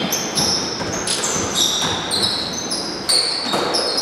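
Basketball shoes squeaking again and again on a hardwood court floor, many short high squeaks, mixed with the thuds of a dribbled basketball and running feet; a sharper thud about three seconds in.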